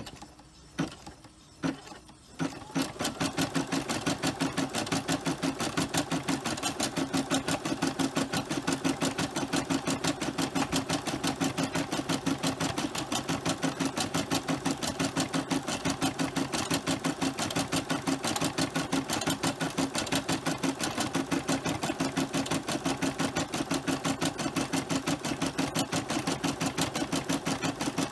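Brother SE425 embroidery machine stitching out a cross-stitch design on felt. A few separate clicks come in the first two seconds, then it settles into rapid, steady, rhythmic needle stitching.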